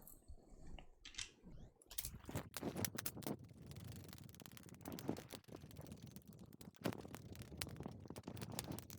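Faint, irregular clicks, knocks and scrapes of a project enclosure box being handled and assembled, its parts being fitted and closed together.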